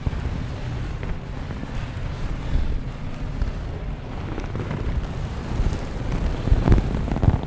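Low rumbling handling noise on the microphone while sheer curtain fabric is pulled across and lifted into a swag, with a few louder bumps near the end.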